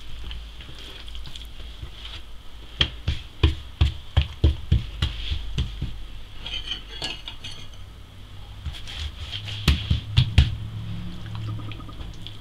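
Hands folding and pressing an oiled sheet of msemen dough on a wooden tabletop. A quick run of soft thumps comes a few seconds in, and three more near ten seconds.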